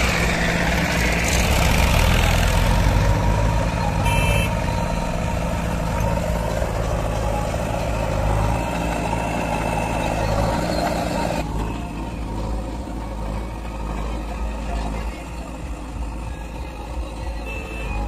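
Diesel engines of a Massey Ferguson tractor and a JCB 3DX backhoe loader running at work as the backhoe loads soil into a tractor trolley. The engine noise drops abruptly about two-thirds of the way in, and a short high beep sounds near the end.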